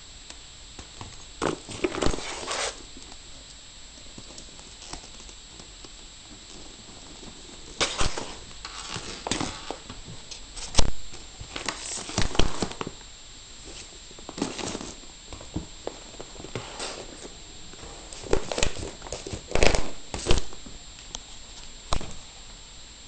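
Clear cellophane and plastic gift wrapping crinkling and rustling in irregular short bursts as it is handled, over a steady low hiss.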